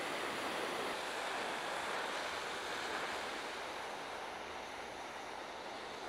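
Handheld gas torch hissing steadily as its flame chars the top of a wooden fence post.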